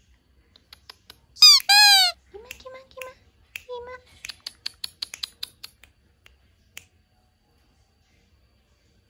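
Cat meowing twice in quick succession, each meow falling in pitch, followed by a few shorter, lower chirps. Then comes a quick, even run of light clicks like typing, lasting about a second and a half.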